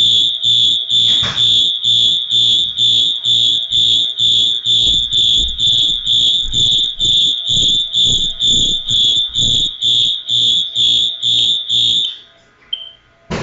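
Fire alarm horn sounding a loud, high-pitched pulsing tone, about two and a half pulses a second, during a zone test of a home fire alarm system. It cuts off about twelve seconds in, and a single sharp click follows near the end.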